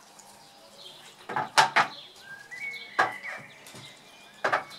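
Raw pork spare-rib rack being handled and turned over on a stainless steel tray with gloved hands: knocks and slaps of meat and bone against the metal, a quick cluster about a second and a half in, then single knocks at about three seconds and near the end.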